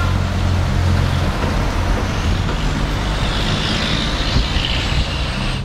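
Semi-trailer truck's diesel engine passing with a low steady drone that drops away about a second in, followed by road traffic noise and the tyre hiss of a passing car.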